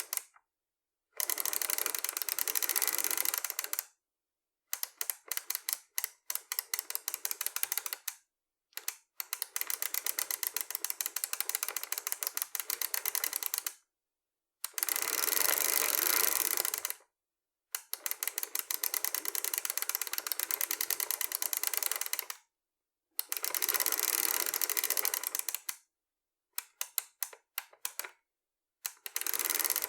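Bicycle freewheel coasting: the pawls click rapidly over the ratchet teeth in spells of a few seconds each, some slowing as the wheel runs down, with short silent gaps between spells.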